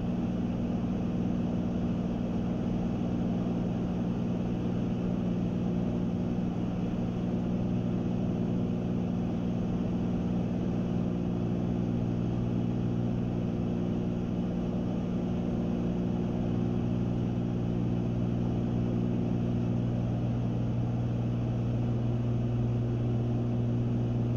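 The twin piston engines of a Cessna 310Q running steadily in flight, heard inside the cabin as an even drone with a few low steady tones.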